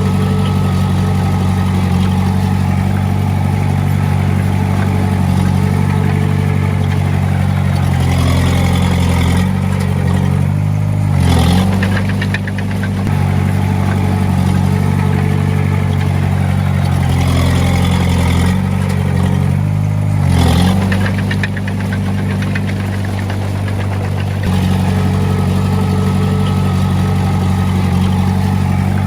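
Small Komatsu D20A bulldozer's diesel engine running steadily. Twice, about a third and about two-thirds of the way through, the engine note drops and then picks up again, with a brief clatter.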